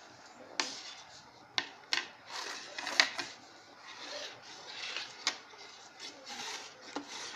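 Folded printer paper being pressed and creased against a wooden tabletop, hands and a ruler rubbing and scraping along the folds, with several sharp taps along the way.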